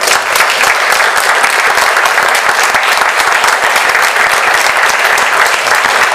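Audience applauding steadily, a dense patter of many hands clapping in a small meeting room, as a talk ends with thanks to the speakers.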